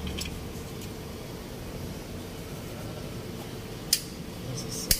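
Steady low hum of the surroundings, with two sharp clicks of hand tools about a second apart near the end.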